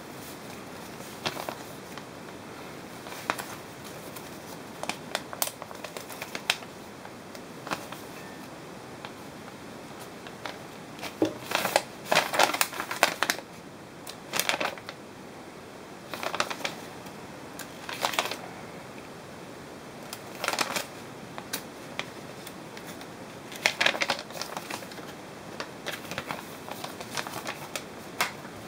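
Paper instruction sheets, foam wrap and plastic bags rustling and crinkling as they are handled, in irregular bursts with the busiest stretch about twelve seconds in.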